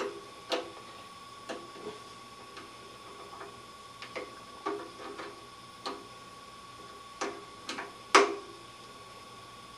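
Screwdriver working the screws of a small engine's vacuum fuel pump cover as they are tightened: irregular metal clicks and taps, about a dozen, the loudest about eight seconds in.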